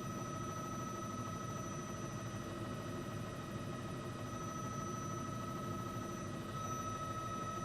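Steady news-helicopter cabin noise heard through the pilot's intercom microphone: an even hiss with a constant high whine on top.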